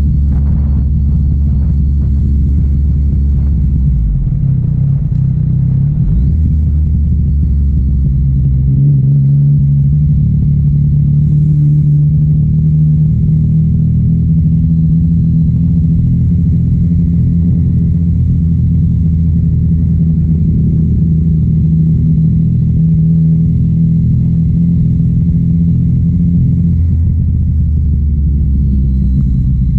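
Motorcycle engine running as the bike rolls slowly down a road, a steady low drone whose pitch steps up a few times in the first third and drops briefly near the end as the throttle or gear changes.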